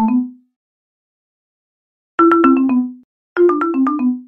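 Electronic earthquake early-warning alert chime. A short rising run of quick notes ends just after the start, then two quick descending runs of notes come about 2 and 3.4 seconds in. It signals that strong shaking has been detected.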